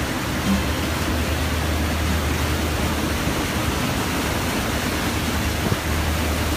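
Steady rushing noise of wind on the microphone and the churning wake behind a moving boat, over the low, steady hum of the boat's engine.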